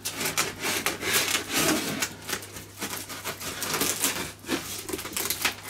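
Plastic wrap and packing tape being pulled and torn off a large cardboard box, with the cardboard flaps rubbing: a busy run of irregular crackles and scrapes.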